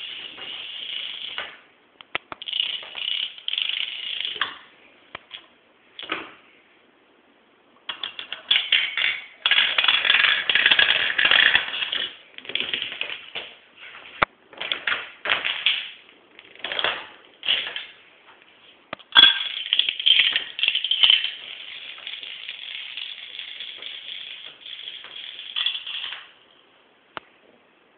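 Lines of dominoes toppling in a chain: a dense, rapid clatter that comes in runs, stopping and starting again many times with brief quiet gaps between. The busiest stretch is about ten seconds in.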